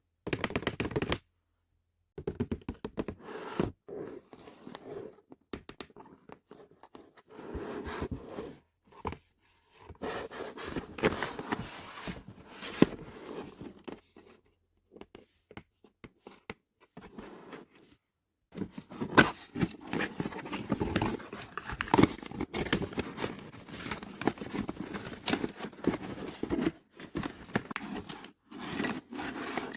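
Close-miked handling of plastic toy parts and packaging: an irregular run of clicks, taps, scrapes and crinkles with a few short pauses, busier and louder in the last third.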